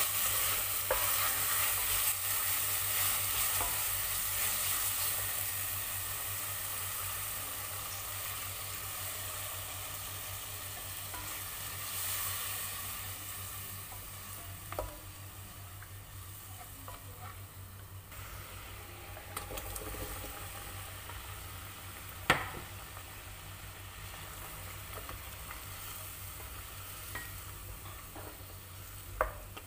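Ground spice paste sizzling in a pot as a wooden spatula stirs it. The sizzle fades over the first several seconds as coconut milk thins the paste, leaving a quiet simmer with a few sharp knocks, the loudest about two-thirds of the way through.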